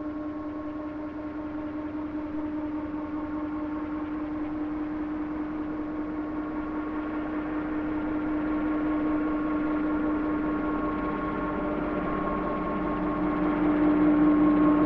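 Large-scale radio-controlled Boeing CH-47 Chinook tandem-rotor model helicopter flying: a steady, even-pitched whine over rotor noise, growing louder near the end as it passes close by.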